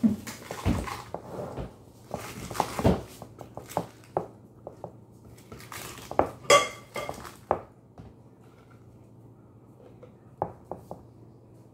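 Food scraps being tipped and scraped by hand from a bowl into a plastic bucket: irregular knocks, clatters and rustles of the bowl against the bucket rim for about eight seconds, with one ringing clink about six and a half seconds in.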